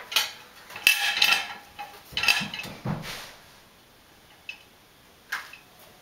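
Dishes clinking and clattering as they are taken out of a dishwasher's racks: several clatters in the first three seconds, then two faint clicks.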